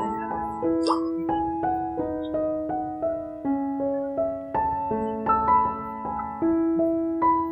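Background piano music: a gentle run of notes played at an even pace, about three a second.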